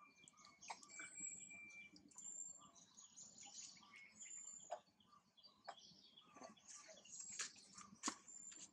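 Faint bird chirps and short high whistles, with a few soft clicks scattered through.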